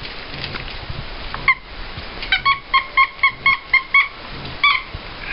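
Squeaky dog toy being bitten by a puppy: a single squeak about a second and a half in, then a quick run of about ten high squeaks, several a second, and one more near the end.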